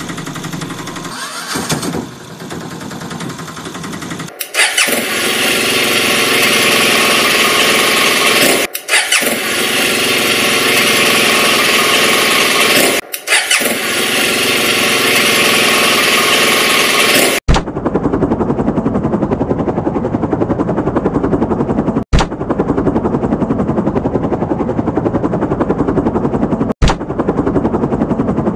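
Loud vehicle engine sounds for toy vehicles, changing abruptly every few seconds. First a rough, motorcycle-like engine, then, for the last third, a helicopter's rapidly chopping rotor.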